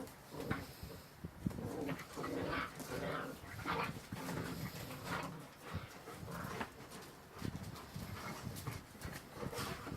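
Puppies play-fighting: short yips, whines and little growls, on and off.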